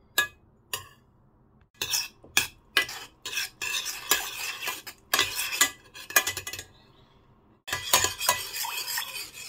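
Metal spoon scraping and clinking against a stainless steel saucepan, stirring butter as it melts. Two sharp taps near the start, then quick repeated stirring strokes, with a brief pause about seven seconds in before the stirring resumes.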